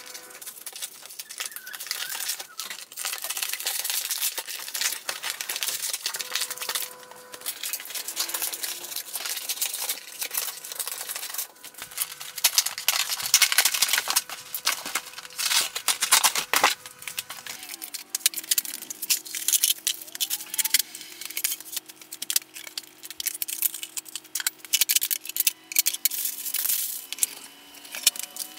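Cardboard flat-pack carton being cut open with a blade, torn and folded back, with many irregular crackles, rips and crinkles. Near the end, particleboard panels inside are shifted against the cardboard.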